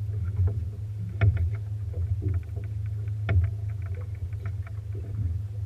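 Steady low hum of a fishing boat's motor, with scattered short knocks and taps, two of them louder, about a second in and past the middle.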